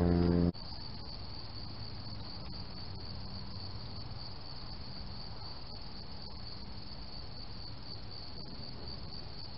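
Crickets trilling steadily in a high, continuous chirring. A loud low hum with overtones cuts off abruptly about half a second in.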